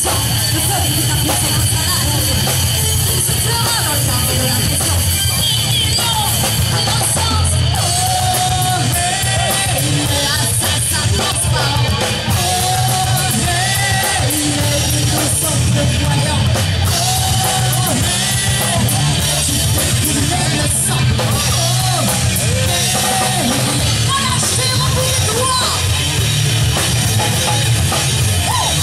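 Live rock band playing loud: electric guitars and a drum kit, with a singer's voice over them.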